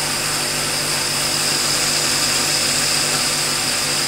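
Countertop blender running steadily, mixing a thin pancake batter of eggs, milk and flour: a loud, even whirring with a low steady hum under it.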